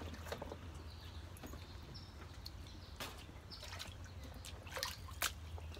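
Shallow stream trickling over rocks, with a few sharp clicks and knocks scattered through.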